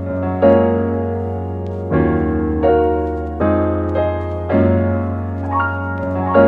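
Background music: a piano playing slow, gentle chords, a new chord struck about every second or so and left to ring over a held bass note.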